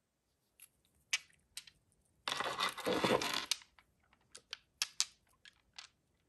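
Glass Mugler Alien perfume bottles being handled and set down on a wooden tabletop: scattered sharp clicks and taps of glass on wood and bottle against bottle, with a louder scraping rustle lasting about a second around two seconds in.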